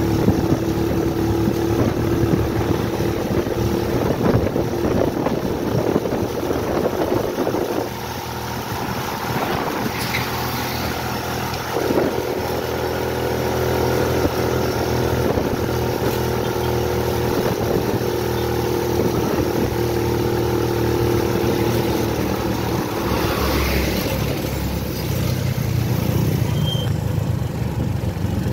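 Steady engine and road noise of a road vehicle driving along, heard from on board, dipping a little about a quarter of the way through.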